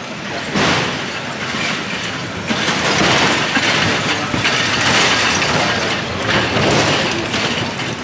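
City street traffic: vehicles passing close by make a steady rushing noise that swells and eases several times.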